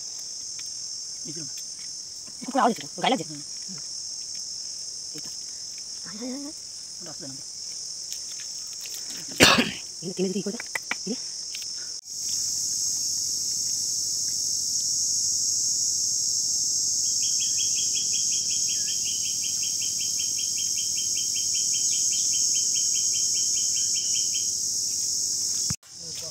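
Mangrove-forest insects keep up a steady, high-pitched chorus, which turns much louder after a cut about halfway through. In the second half a separate fast chirping pulses about five times a second for several seconds. In the first half a few short human voice sounds and a sharp knock stand out above the chorus.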